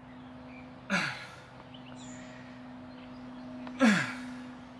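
A man grunting with effort as he curls a dumbbell: two short, strained exhales about three seconds apart, each falling in pitch. A steady low hum runs underneath.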